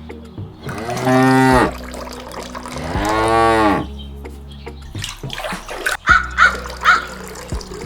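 A cow mooing twice, each moo under a second long and rising then falling in pitch, the first about a second in and the second about three seconds in. A few light knocks and clicks follow.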